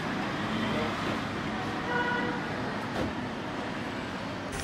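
Steady background street noise: a hum of traffic, with a short vehicle horn toot about two seconds in.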